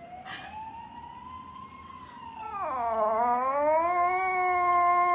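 Poodle howling: a thin, long drawn-out call that slides slowly upward, then about halfway through swells into a louder, fuller howl that dips, climbs back and is held steady.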